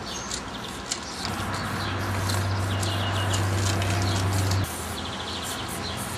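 Aerosol spray-paint cans hissing in short bursts against a brick wall, with birds chirping. A low steady hum runs from about a second in until past the middle.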